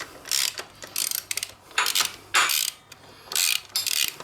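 Socket ratchet clicking through about six short back-and-forth strokes, unscrewing a motorcycle foot peg bolt that has just broken loose.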